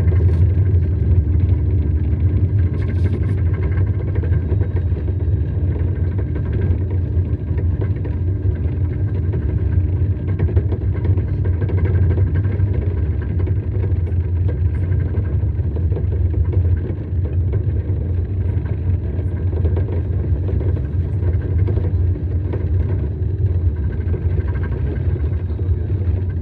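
Snow crawler (tracked snowcat) engine and running gear, a steady low rumble with a constant hum, heard from inside the passenger cabin while the vehicle travels over snow.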